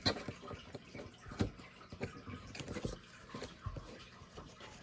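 Hockey trading cards being handled: a scatter of short rustles and light taps as the cards are shuffled through and set down.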